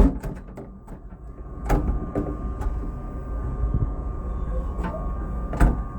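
Several knocks and clunks of a passenger rail car's door being tried and found locked, the loudest near the end, over a steady low rumble and a faint high hum.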